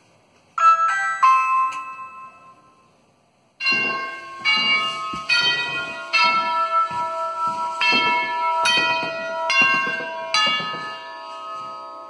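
Doorbell button press: two quick chime notes sound about half a second in, then a NuTone mechanical tubular door chime with four long tubes rings an eight-note tune, two groups of four strikes, each tube ringing on and overlapping the next.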